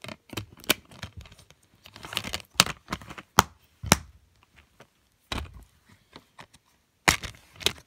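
A plastic DVD case being handled: a run of sharp clicks and clacks with soft rustling between them.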